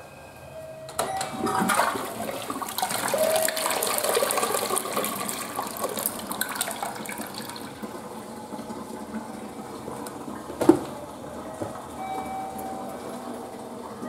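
Western-style toilet flushing. Water rushes and swirls down the bowl starting about a second in, loudest for the first few seconds, then settles into a quieter steady running of water. A single sharp knock comes near the end.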